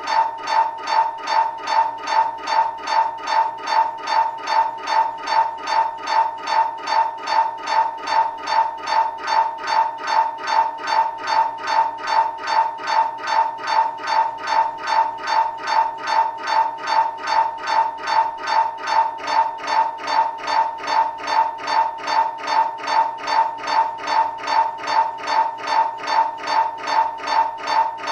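MRI scanner in the middle of a scan sequence: its gradient coils pulse in a loud, steady, evenly spaced beeping buzz at about two and a half pulses a second, every pulse at the same pitch.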